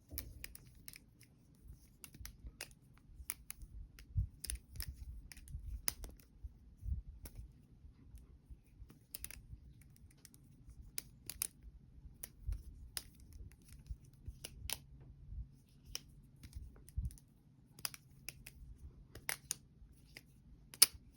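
Balisong (butterfly knife) being flipped in a trick combo: its handles and blade clack and click against each other at irregular intervals, over low rumbling handling noise.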